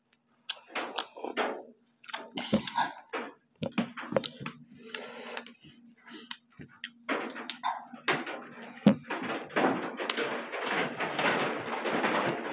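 Close-miked eating sounds: irregular chewing and lip smacking from people eating rice and meat by hand, denser toward the end, with one sharp knock about two-thirds of the way through.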